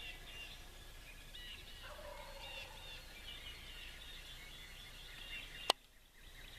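A wild turkey gobbles faintly about two seconds in, over steady chirping of small birds. A single sharp click comes near the end.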